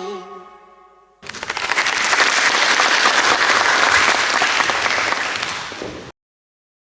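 The last sung note of a recorded pop song fades out, then an audience applauds for about five seconds before the sound cuts off abruptly.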